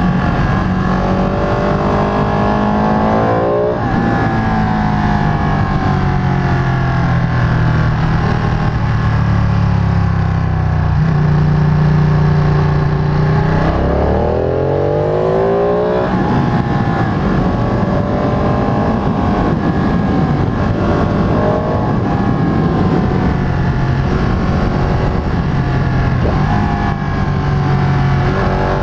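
Ducati 959 Panigale's 955 cc L-twin engine under way, its revs rising and falling as the bike accelerates and slows. The pitch drops suddenly about four seconds in, climbs steeply again around fourteen seconds in, and rises once more near the end.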